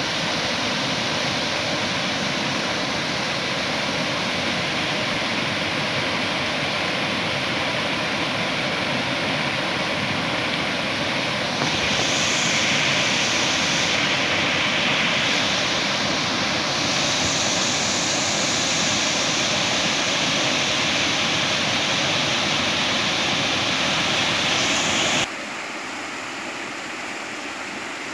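River water rushing and churning through a bamboo fish weir, a steady loud noise of falling water. The sound turns brighter about twelve seconds in and drops abruptly to a quieter rush near the end.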